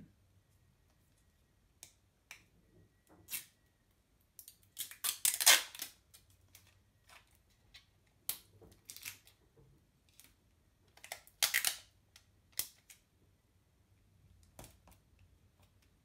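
Clear sticky tape pulled off a roll and torn off in a series of short noisy bursts. The longest and loudest is about five seconds in, with more around eight and eleven seconds and softer ones later.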